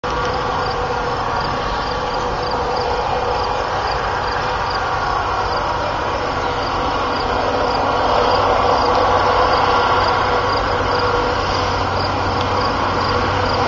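Diesel switcher locomotives (EMD MP15ACs) leading an approaching freight train, a steady engine drone that grows slightly louder about eight seconds in.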